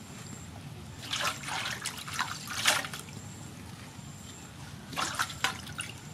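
Wet leafy greens rustling and crackling as hands lift and shift them in a woven bamboo basket, in a few short bursts about a second in, around two to three seconds, and again near five seconds.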